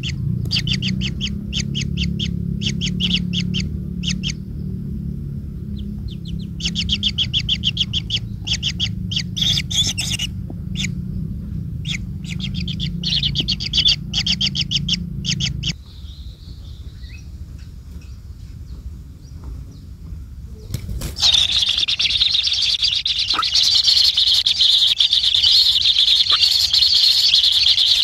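Bird calling in rapid series of short, high chittering notes, in groups broken by pauses, over a low rumble that stops about sixteen seconds in. From about twenty-one seconds a loud, steady high-pitched hiss takes over.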